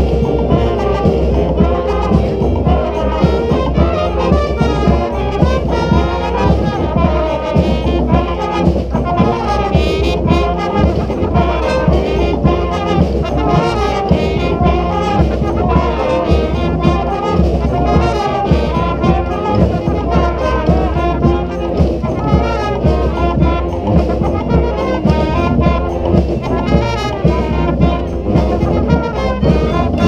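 Street brass band of trumpets, trombones and saxophones over drums playing an Afrobeat tune with a steady, busy beat. The music stops right at the end.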